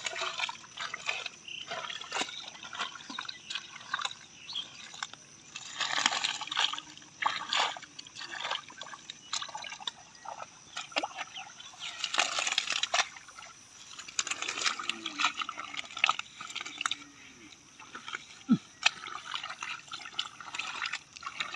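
Hands groping for fish in shallow mud and water, making irregular wet squelches and sloshes.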